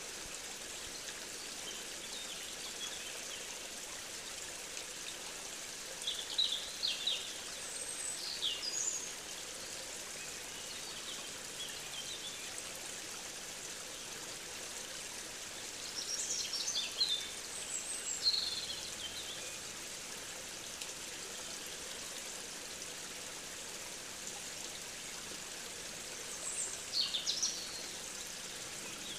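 Nature recording: a steady rush of flowing stream water, with a songbird singing short, high phrases a few times, about every ten seconds.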